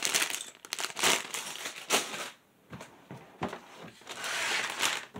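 Sealed plastic bags of Lego pieces crinkling and rustling as they are handled, with a short pause about halfway through.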